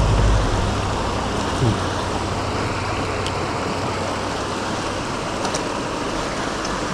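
Mountain stream rushing steadily, an even hiss of flowing water, with a low rumble at the very start that fades within the first second.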